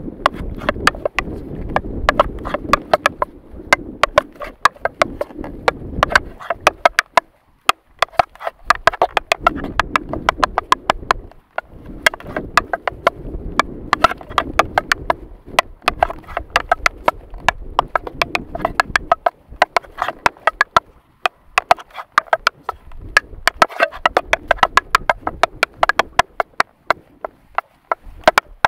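Tap shoes on a concrete path, an a cappella tap dance: rapid runs of sharp metal taps in phrases, broken by short pauses, with a low rumbling haze underneath in stretches.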